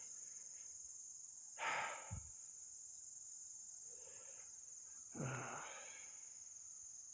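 Steady high-pitched insect chorus, a continuous shrill drone. Two short breathy noises stand out over it, about two seconds in and again about five seconds in.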